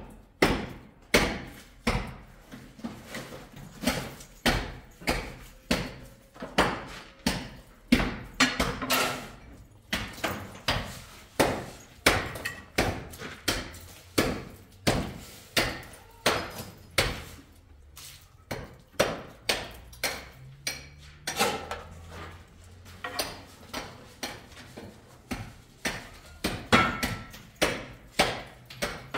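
Repeated hammer blows on hard building material, a steady train of sharp strikes at about one to two a second, each ringing briefly.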